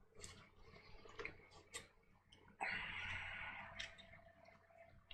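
Faint clicks of Glock 23 pistol parts being handled, then a sudden hiss that lasts about a second, followed by a faint steady hum.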